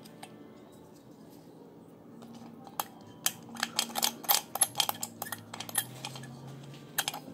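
Small plastic toys clicking and clattering against each other as they are handled: a run of irregular sharp clicks starting about three seconds in, over a faint steady hum.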